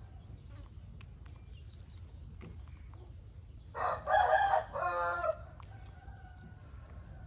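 A rooster crowing once, about four seconds in, in two parts with a short break.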